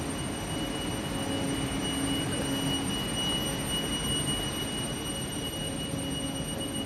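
Polregio electric train standing at the platform, its onboard equipment running with a steady hum under a constant high-pitched whine.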